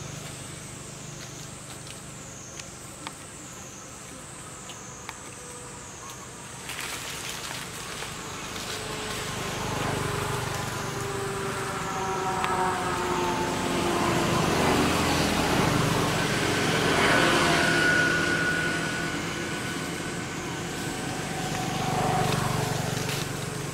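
A motor vehicle's engine, growing louder through the middle, its tones sliding slowly down in pitch, over a steady low hum.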